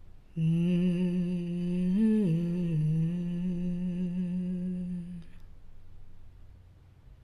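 A single voice humming one long low note with a slight waver. The note rises briefly in pitch about two seconds in and stops about five seconds in, closing the song.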